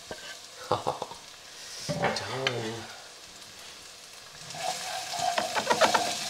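Freshly added chopped onions sizzling in hot mustard oil in a frying pan, with a few knocks on the pan about a second in. The sizzling and stirring grow louder and denser in the last second and a half.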